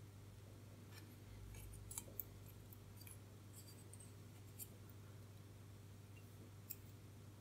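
Near silence over a faint steady low hum, with a few faint clicks and scrapes as a printed circuit board with resistor leads poking through it is handled and turned over: two clicks close together about two seconds in, and single clicks later on and near the end.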